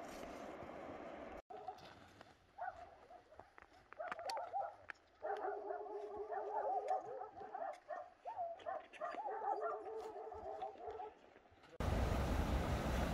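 A dog whining and yelping in repeated wavering calls, with scattered clicks. Near the end, a sudden cut to the loud steady rush of a mountain stream.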